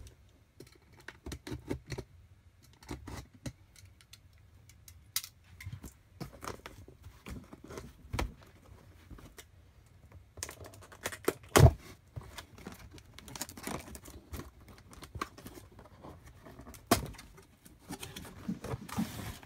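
Hands working at a taped cardboard box flap, scattered scrapes, taps and rustles as the tape is pried loose, with a sharp knock a little past the middle and another a few seconds later.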